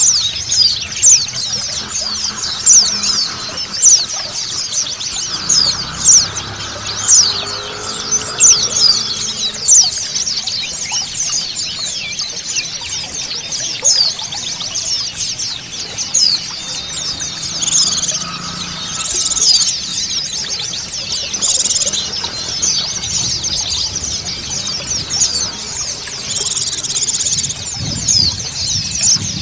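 A group of white-eyes (pleci) twittering together, a dense stream of quick, high chirps, over the sound of running water.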